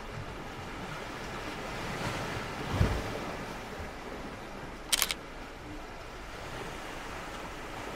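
Sea waves washing on the shore under a steady wash of wind, with a low thump of wind on the microphone about three seconds in. About five seconds in a camera shutter fires with a sharp double click.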